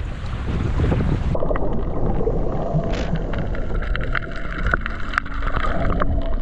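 Shallow water sloshing with wind on the microphone, then about a second and a half in the sound turns suddenly muffled as the camera goes under the surface. Underwater, the water's hiss carries many sharp clicks and crackles.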